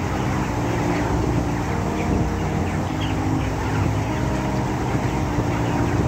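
A large flock of broiler chickens peeping and chirping all at once, many short calls overlapping, over a steady low machine hum.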